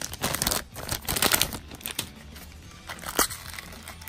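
Foil blind-bag packet crinkling and tearing as it is opened by hand, with a few sharper crackles, the loudest about three seconds in.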